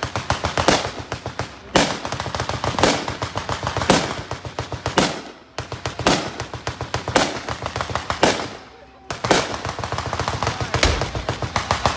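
Staged anti-aircraft fire: rapid, continuous crackling gunfire, with heavier bangs about once a second. It breaks off briefly twice, about five seconds in and again about eight and a half seconds in.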